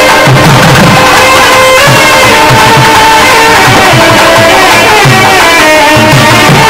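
Several nadaswarams playing a melody together in sustained, reedy tones, over a steady rhythm of thavil drum strokes.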